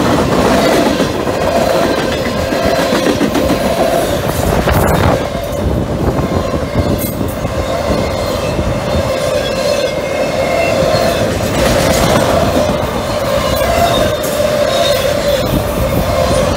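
Long freight train of tank cars and autorack cars passing at speed: a steady loud rumble and clatter of steel wheels on rail, with a high steady ringing tone over it.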